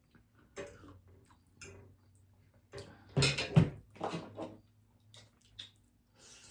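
Tableware and handling noises at a dinner table: a few separate knocks, clinks and rustles, the loudest about three seconds in.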